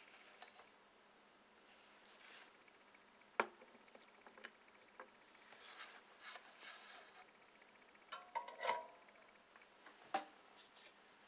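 Faint handling sounds of a small circuit board and soldering tools on a hard desk. A sharp knock about three seconds in, as the board is set down, is the loudest; a cluster of light metallic clinks comes about eight seconds in and one more click near the end.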